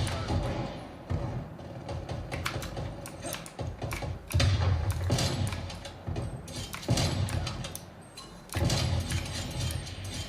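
First-person shooter game audio: a dense run of sharp gunshot-like cracks and clicks, with heavy low booms rising three times.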